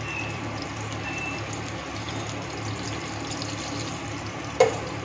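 Hot oil sizzling steadily in a stainless-steel pot on a gas burner, with a few leftover pieces frying in it. One sharp metal clink, likely a utensil striking the pot, comes about four and a half seconds in.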